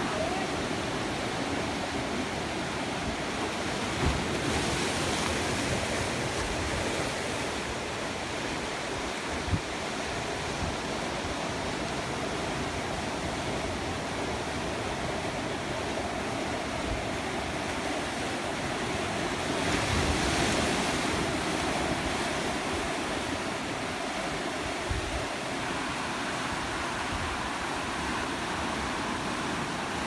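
Sea surf breaking and washing in among rocks and stones on the shore, a steady rush that swells louder about five seconds in and again about twenty seconds in. A few brief low thumps come through.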